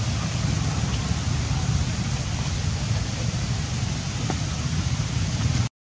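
Steady outdoor background noise with a fluttering low rumble, like wind buffeting the microphone. It cuts out to silence for a moment near the end.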